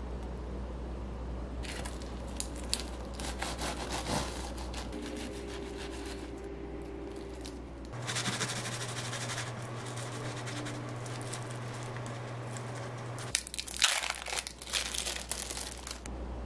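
A serrated bread knife saws through croissants' flaky crust with a steady scratchy crackle. Near the end, the plastic film of a processed cheese slice crinkles loudly in sharp bursts as it is peeled off. Lighter clicks and rustles come earlier.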